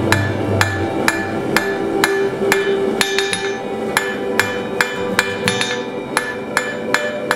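Hand hammer striking hot steel rod on an anvil face at a steady pace of about two blows a second, each blow ringing the anvil.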